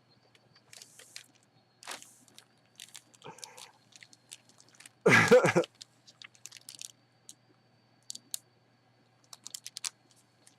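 Crinkling, rustling and clicking of packaging being handled, in scattered short bursts, with one brief loud vocal sound about five seconds in.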